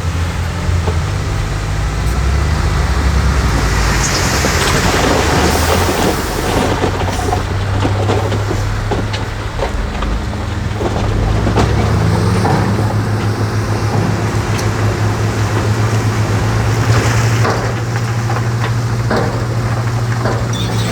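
Heavy construction machinery's diesel engine running under load, with scattered knocks and clatter over it; the engine note rises slightly about twelve seconds in.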